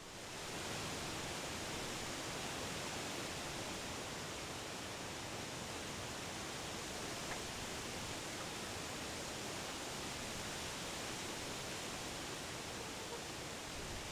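Wind blowing through trees, a steady rustle of leaves that fades in over the first second and then holds even.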